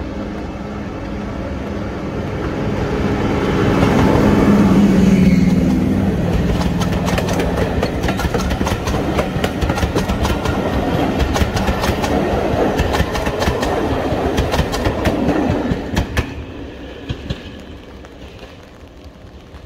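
A diesel locomotive passes close by at speed, its engine note swelling to a peak about five seconds in. The carriages follow with a fast run of wheel clicks over the rail joints for about ten seconds. The sound then fades as the train goes away, with a few last clicks.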